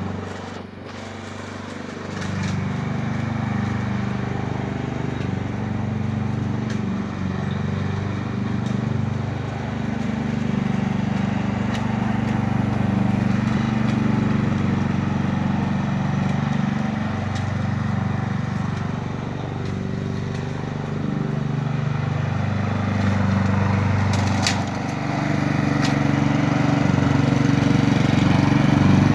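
Honda HRG 466 SK Izy lawn mower's small single-cylinder four-stroke engine running, its speed wavering slightly. It gets louder about two seconds in.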